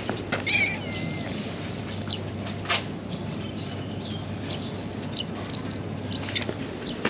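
A brief, high, wavering animal call about half a second in, over a steady low hum of outdoor background noise, with a few faint clicks.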